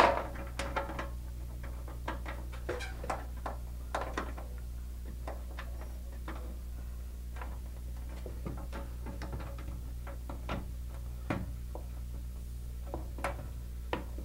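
Small, irregular clicks and ticks of a flat blade antenna being screwed by hand onto the antenna connector of a Honeywell VISTA-GSM4G cellular communicator, over a steady low hum.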